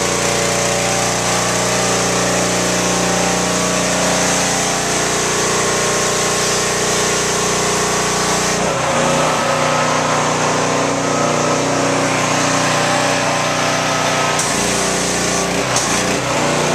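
Pressure washer engine running steadily while its wand sprays water onto a concrete floor, a hiss over the engine's hum. About halfway through the spray hiss falls away and the engine carries on, with the hiss partly returning near the end.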